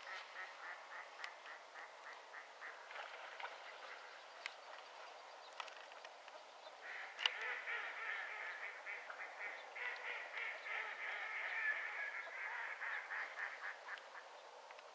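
A flock of ducks calling from the pond: rapid runs of short, repeated calls, about four a second at first, growing louder and denser about seven seconds in and dying away near the end.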